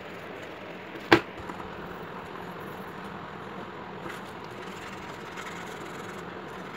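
Steady background noise, with one sharp click about a second in.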